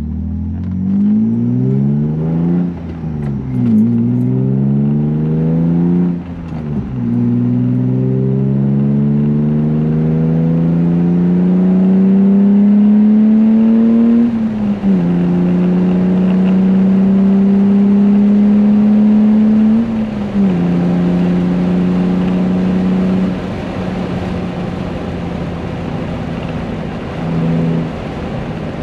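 E36 BMW M3 straight-six heard from inside the cabin, pulling up through the gears of its manual gearbox: the engine note climbs, drops sharply at each of several upshifts, and holds a long steady pull. Near the end it settles to a quieter steady cruise.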